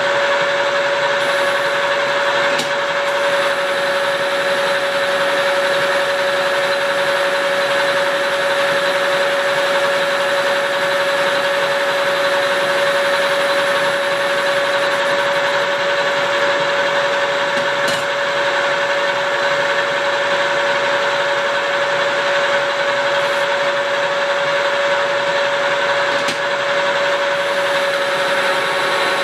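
Metal lathe running steadily under power, turning a wood chipper's drum shaft with a tracer attachment: a constant mechanical hum with a strong steady whine.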